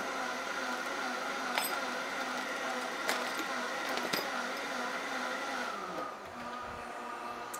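Vitamix A3500 blender motor running its preset wash cycle on warm soapy water, a steady whirr that drops in pitch about six seconds in as the motor slows. A few light clicks sound over it.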